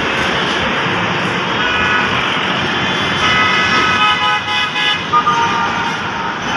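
Road traffic passing close below, with vehicle horns honking repeatedly from about a second and a half in until around five seconds.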